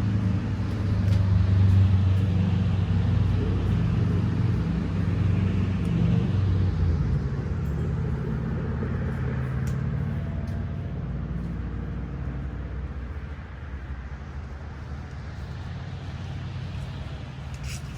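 A motor vehicle engine running steadily, gradually fading as it moves away.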